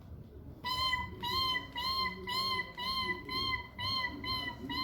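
An animal call imitated for children: a quick run of short, high chirping notes, about two or three a second, starting about half a second in.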